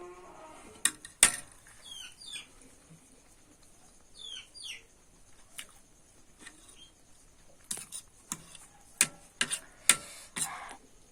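Scattered clicks and clinks of cutlery against a plate while eating noodles, growing busier near the end. Two pairs of short falling bird chirps sound about two seconds and four and a half seconds in.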